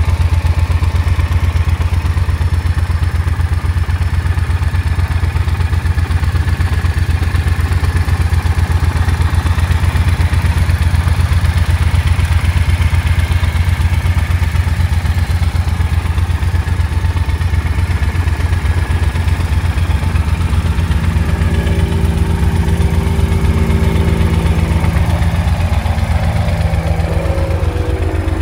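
Triumph Thunderbird 1600's parallel-twin engine idling steadily through its exhaust.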